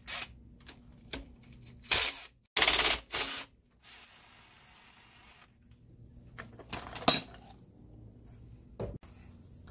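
Cordless Bauer power driver with a socket spinning a fastener on an engine's coolant-outlet fitting in several short bursts, the longest and loudest near the middle, mixed with metallic clicks of the bolts and fitting being handled.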